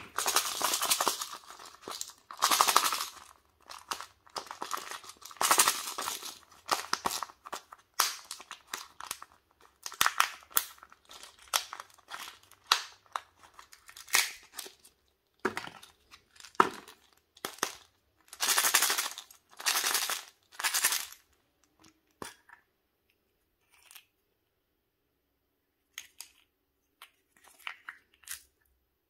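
Foil wrappers and lids of Kinder Joy eggs torn and crinkled by hand in repeated bursts of crackling, with short plastic clicks from the egg halves and toy capsule. Only a few sparse clicks near the end.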